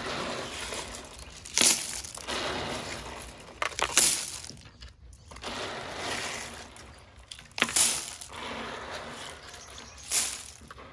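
Sea snails being scrubbed by hand in a plastic basin of water: many small shells grinding and clattering together with sloshing water, with a sharper, louder burst of clatter every two to three seconds.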